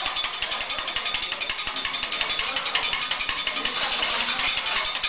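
Metal spatulas clacking rapidly and steadily against a teppanyaki griddle, about ten strikes a second.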